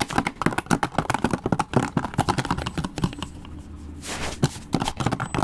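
Rapid, irregular clicking and clattering of small hard objects being handled and knocked together, with a short louder scraping clatter about four seconds in.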